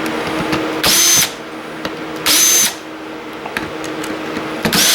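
Cordless drill-driver running in three short bursts of under half a second each, its motor whining up to speed each time, as screws are driven out of a server blade.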